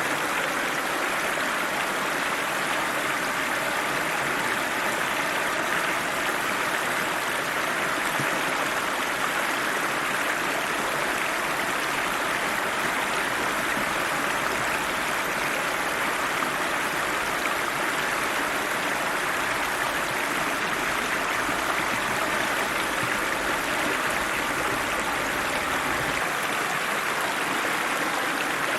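River water running steadily over rocks, a constant rushing and gurgling.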